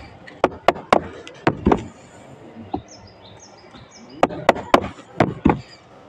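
A steel hammer striking the plastic handle of a screwdriver, driving its blade into the surface like a chisel. The sharp taps come in two runs, about five in the first two seconds and five more from about four seconds in. A bird chirps faintly in between.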